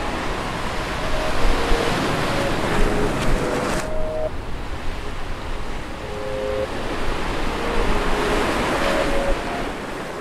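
Film soundtrack with a slow melody of short held notes over swelling rushes of noise like surf. The first rush builds and cuts off abruptly about four seconds in, and a second rush swells near the end.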